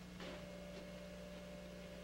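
Faint steady electrical hum and hiss of an old videotape recording, with a thin steady tone running through most of it.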